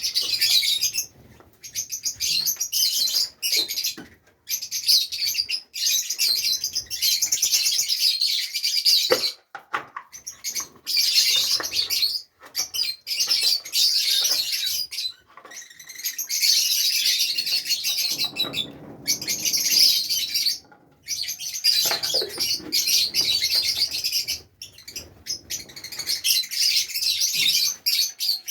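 A group of Fischer's lovebirds chirping and chattering in rapid, shrill high-pitched strings, broken by several short pauses.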